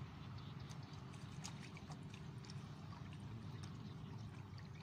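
Faint drips and small splashes of lake water running off a fishing net as it is hauled in by hand and a fish is worked free of the mesh, with scattered small ticks over a steady low hum.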